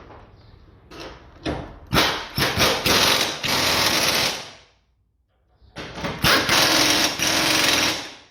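Impact wrench hammering bolts tight, in two bursts of a few seconds each with a short pause between them, preceded by a few brief taps.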